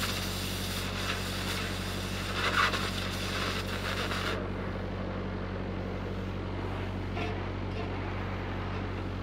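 Oxy-fuel cutting torch hissing as it cuts a saddle into used steel pipe, cutting off about four seconds in. Under it, the steady hum of the welding rig's engine runs throughout.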